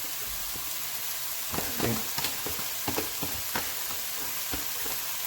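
Rice and vegetables frying in a pan with a steady sizzle. From about a second and a half in, a spatula knocks and scrapes against the pan several times as the rice is stirred in.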